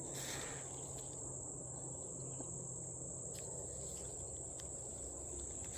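An insect chorus droning steadily on one high, unbroken pitch.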